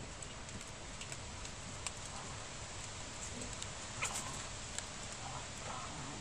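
Afghan hound puppies playing in light snow: faint scattered pattering and ticks of paws over a steady low hiss, with a brief puppy vocal sound about four seconds in and another fainter one near the end.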